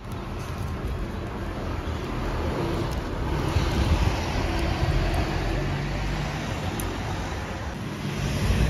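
Street traffic: a steady low rumble of passing cars, getting a little louder about three seconds in.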